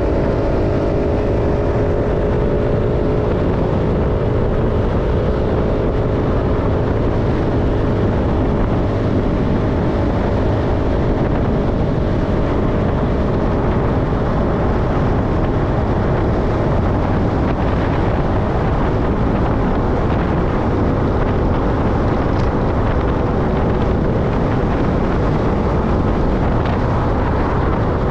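Engine of a moving vehicle, recorded on board, running steadily under a constant rush of wind over the microphone. The engine's hum fades into the wind noise about two-thirds of the way through.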